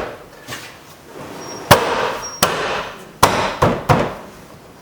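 A car's plastic rear door trim panel being knocked against the door to snap its retaining pins into place: about five sharp knocks, less than a second apart, starting just under two seconds in.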